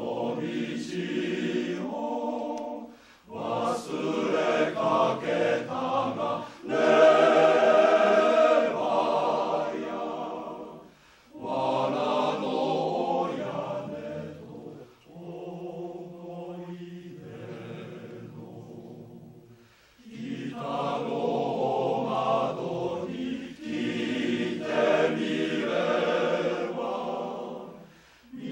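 Male-voice choir singing in harmony, in long phrases with short breaks between them, with a softer passage just past the middle.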